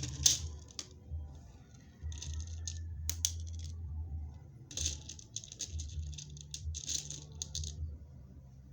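Small loose beads rattling and clicking as they are handled, in several short bursts, the longest about halfway through.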